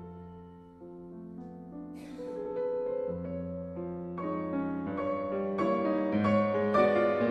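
Piano music playing soft, sustained notes over a held bass. It grows louder and the notes come faster in the last few seconds.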